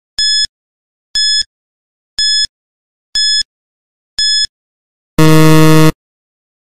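Quiz countdown timer sound effect: five short, high electronic beeps about one second apart, one per second counted down. They are followed by a louder, lower buzzer lasting under a second that signals time is up.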